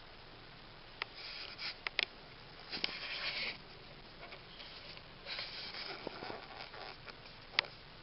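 A Scottish Fold cat sniffing in a few short, quiet bursts, with several sharp clicks in between.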